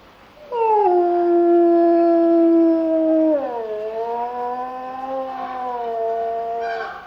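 Grey wolf howling: one long howl that slides down briefly at its start, holds a steady pitch, then drops to a lower pitch about three seconds in and holds there until it stops just before the end.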